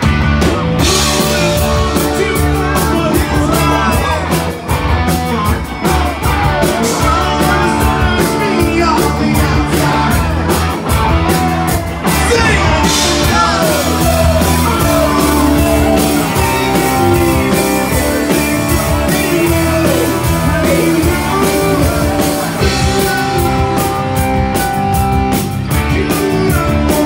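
Live rock band playing loud: electric bass, electric guitar and drum kit, with a man singing into the microphone.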